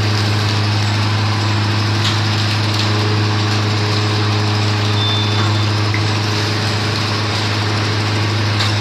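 Semi-automatic detergent granule filling machine running: a steady electric hum with a constant rushing noise, and a few faint clicks.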